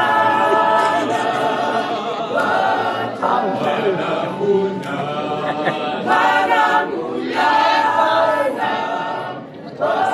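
A small mixed choir of men and women singing unaccompanied, holding long notes in phrases with brief breaks between them.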